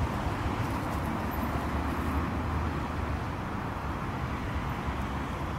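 Steady outdoor background noise: an even low rumble with a lighter hiss above it, and no distinct separate sounds.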